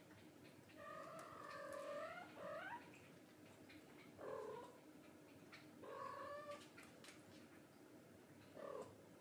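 A cat meowing four times: first one long, drawn-out meow that rises in pitch at its end, then three shorter meows.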